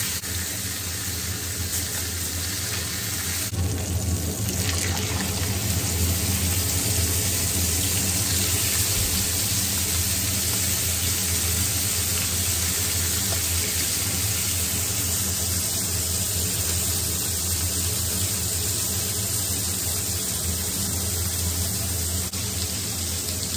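Thin slices of marinated beef sizzling steadily in a hot frying pan, over a steady low hum.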